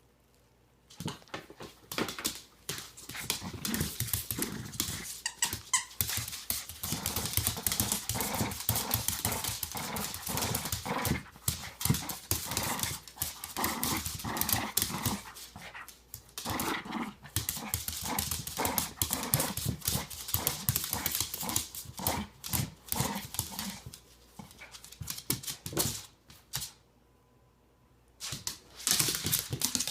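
Shih tzu playing with a stuffed toy, making dog noises and squeaks in quick, rough bursts almost throughout, with a brief pause near the end.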